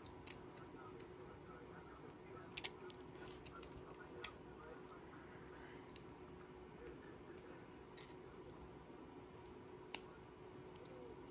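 Hard plastic Beyblade parts being handled and pressed together: a handful of short, sharp clicks scattered a second or more apart, over a faint steady hum. It is the sound of the chip being worked back into the layer while it won't seat.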